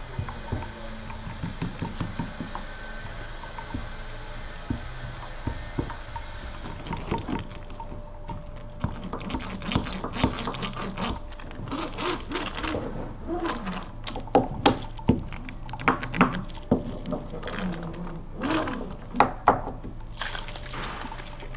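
Metal laminating roller and brush working resin into wet glass-fibre mat on timber: irregular wet squishing and clicking that grows busier and louder from about seven seconds in.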